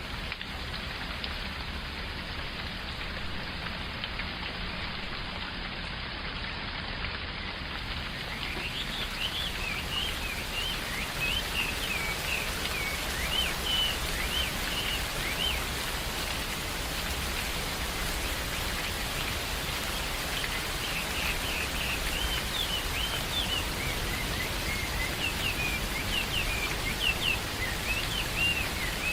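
Steady rain falling, with a bird singing runs of quick high chirps that start about a third of the way in and return for the last third.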